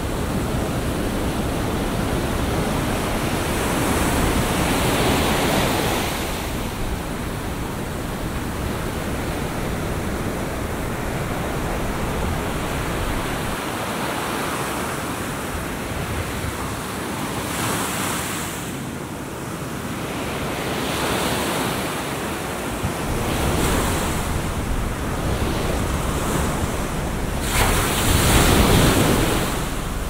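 Atlantic surf breaking and washing up a sandy beach, the roar of the waves swelling and easing every several seconds, loudest near the end. Wind buffets the microphone underneath.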